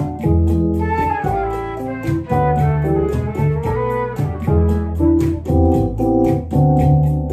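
Small Latin jazz trio playing: a flute melody over electric keyboard chords and walking upright bass, with an even light ticking beat keeping time.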